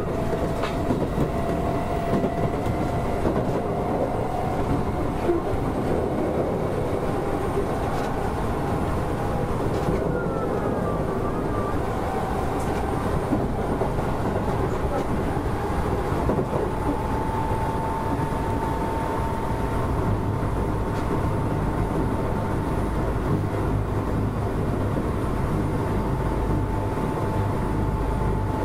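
Keisei 3400 series electric train running, heard from on board: steady rolling rumble with a traction-motor whine that climbs slowly in pitch as the train gains speed, and occasional clicks from the wheels.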